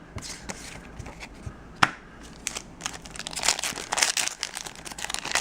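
Foil wrapper of a Yu-Gi-Oh! booster pack crinkling as it is handled and torn open, with a sharp click about two seconds in and the crinkling growing denser from then on.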